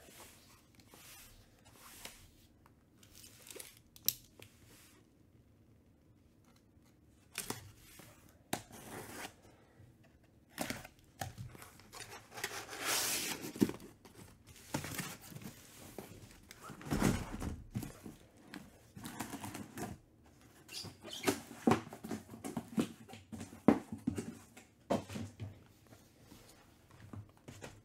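A taped cardboard shipping case being torn open, with a longer stretch of ripping cardboard and tape about halfway through. Shrink-wrapped trading-card hobby boxes then slide out and are set down and knocked into stacks, giving scrapes and light thuds.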